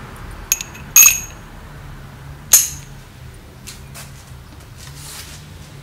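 Metal hand tools, a spark plug socket and wrench, clinking against each other. Three sharp, briefly ringing clinks, the loudest about a second and two and a half seconds in, are followed by a few lighter ticks.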